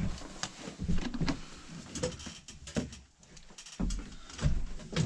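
Tableware being handled at a wooden table: a spoon scraping and tapping in a plastic tub, with dishes and utensils knocking on the tabletop in irregular clicks and a few dull thumps.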